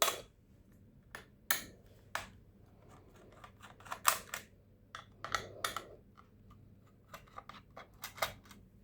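Screwdriver working the screws out of a laptop's bottom cover: about a dozen small, irregularly spaced clicks and taps.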